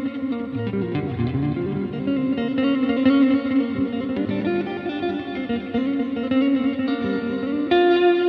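Fender Stratocaster electric guitar with a clean tone, playing a blues line of single notes with bends, then a ringing chord near the end.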